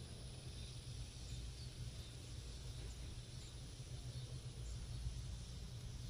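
Quiet outdoor ambience: a steady low rumble with a few faint, short high chirps now and then.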